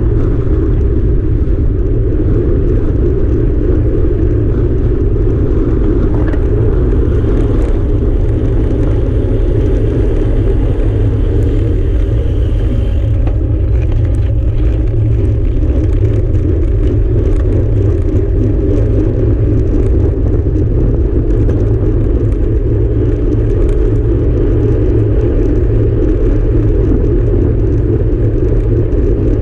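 Steady wind noise on the microphone of a handlebar-mounted camera on a moving road bike, mixed with the rumble of the tyres on asphalt.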